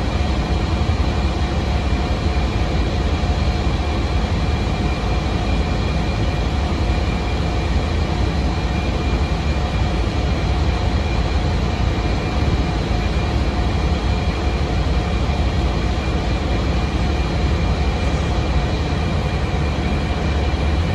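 2006 NABI 40LFW transit bus with a Cummins ISM diesel, heard from inside the passenger cabin: a steady low engine rumble with road and body noise and a faint steady whine.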